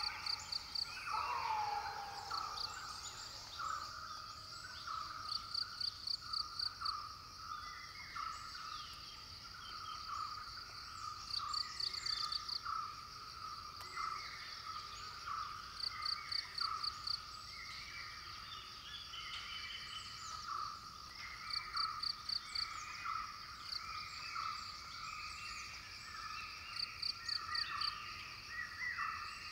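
Forest ambience: a steady chorus of small calling animals, with a fast pulsing trill that comes in short bursts about every five seconds, and two falling whistled calls near the start.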